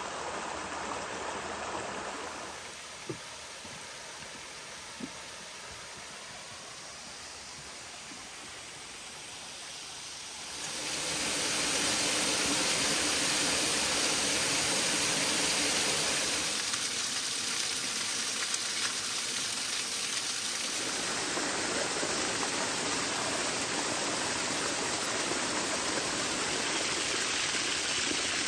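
Water rushing over rocks in a creek and a small waterfall cascading down a rock ledge: a steady rush that becomes much louder about ten seconds in.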